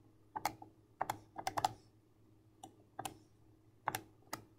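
Keys of a TI-84 Plus Silver Edition graphing calculator being pressed: about eight short clicks at an uneven pace, some in quick pairs, as a number and a minus sign are entered.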